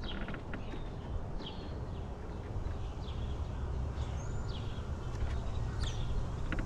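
Wind buffeting the microphone with a steady low rumble, while a bird repeats a short falling chirp about once a second.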